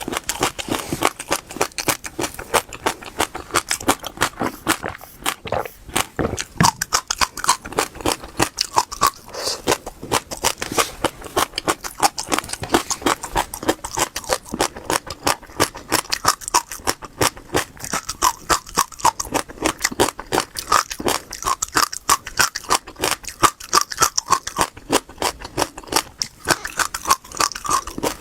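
Close-miked chewing of crunchy seeds: a rapid, continuous run of crisp cracks and crunches as the seeds break between the teeth, easing off briefly around five to six seconds in.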